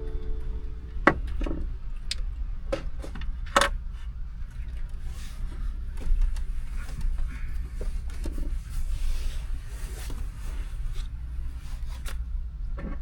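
Small clicks, knocks and rustles of things being handled inside a parked car, over a steady low rumble.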